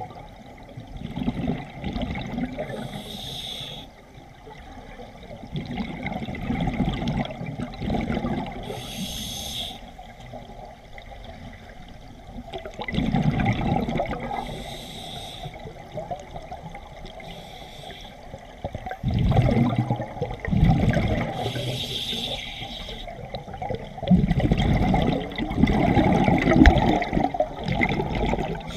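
Scuba diver breathing through a regulator underwater: a short hissing inhale through the demand valve about every six seconds, each followed by a longer burst of gurgling exhaled bubbles.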